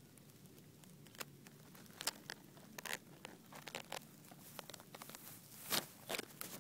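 Irregular crackling and rustling of grass blades brushing right against the microphone, a string of sharp clicks that begins about a second in and is loudest near the end.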